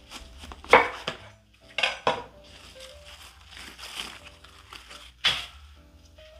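Five sharp, crisp snaps, the loudest about a second in, as napa cabbage leaves are trimmed at the base with a knife and broken off one at a time. Light clinks of metal and soft background music sit underneath.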